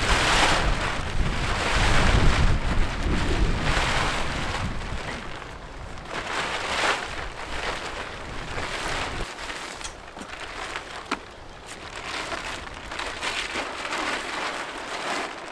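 Heavy plastic tarpaulin rustling and crinkling in surges as it is hauled up and spread over a pickup truck's canopy, with wind rumbling on the microphone for the first few seconds. A couple of sharp clicks come about two-thirds of the way through.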